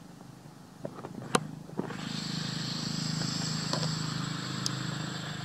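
A motor vehicle's engine hum, getting louder about two seconds in, with a steady high hiss over it. A few sharp clicks come just before the hum swells.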